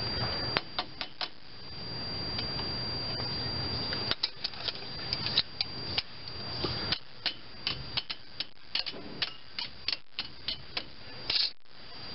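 Steel pliers clicking and tapping on a stainless steel cotter pin at the castle nut of a front wheel hub as the pin is worked into place: a series of sharp, irregular metal clicks, a few early and then many close together, with the loudest pair just before the end.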